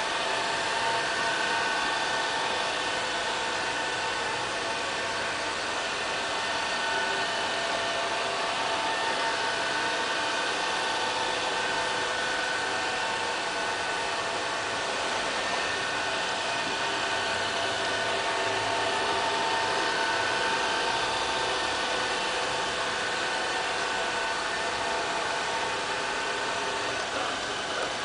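Robot vacuum cleaner running across a tile floor: the steady whirr of its suction fan and brushes, with a few faint, steady, high whining tones.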